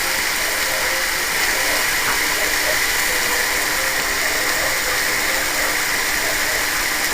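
Browned sausage and chopped red onion sizzling steadily in a pan.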